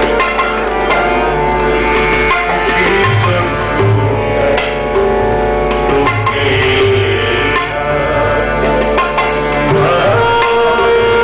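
Harmonium playing a melody over sustained reed tones, with tabla drumming in accompaniment.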